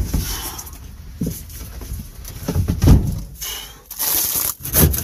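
Handling noises on a van floor: a few dull thumps and knocks as materials are moved, the loudest about three seconds in, then aluminium foil crinkling from about four seconds in.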